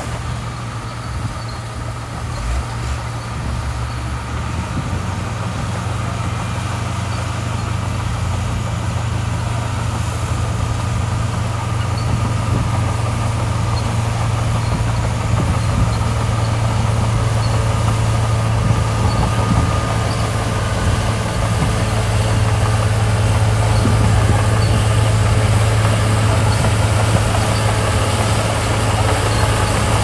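Heavy construction machinery's diesel engine running steadily with a deep, even drone that grows a little louder toward the end.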